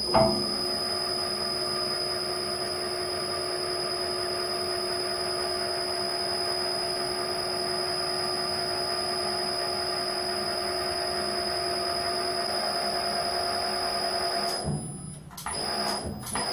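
The 1.5 kW gear motor of an Uzor-N1 Black Edition cold-forging machine runs steadily with a constant whine as its torsion module twists a 12 mm square steel bar into a spiral. The motor stops about fourteen and a half seconds in, followed by a few short knocks.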